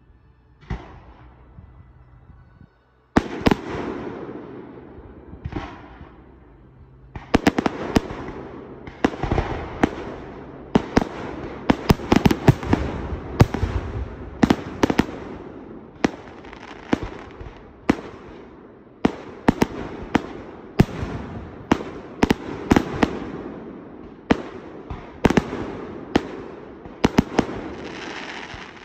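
Display fireworks: aerial shells launching and bursting. After a quiet start there is a sudden loud bang about three seconds in. From about seven seconds on, a dense barrage of sharp reports follows in quick succession.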